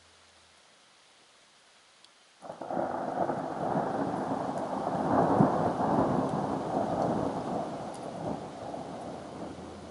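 A thunderclap: after faint hiss, thunder breaks in sharply about two and a half seconds in, then rumbles, loudest around the middle, and slowly dies away.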